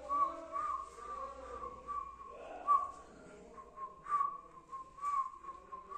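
A whistling tone held almost without a break, wavering and flicking upward now and then, with a few short sharper notes on top.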